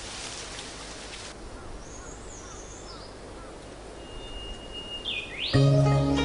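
Forest ambience with bird calls: a steady hiss that cuts off about a second in, then scattered small chirps, a thin held whistle and a quick rising call. Gentle music with sustained notes comes in near the end and is the loudest sound.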